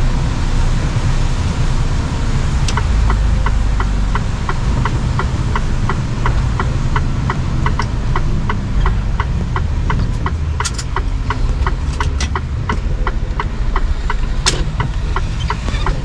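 Cab of a Mercedes-Benz Actros truck: the diesel engine rumbles under the cab while, from about three seconds in, the turn-signal indicator ticks steadily, about three ticks a second. A few louder clicks stand out near the end.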